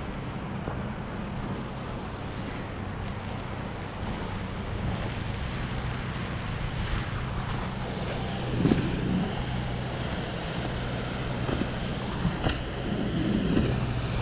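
Wind buffeting the microphone high over the sea, with a steady low motorboat engine hum beneath it and a few stronger gusts in the second half.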